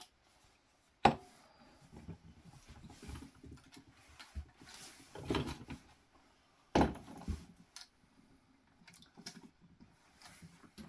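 Tools and parts being handled and set down on a work surface: a sharp knock about a second in, rustling and light clatter, and another knock near seven seconds.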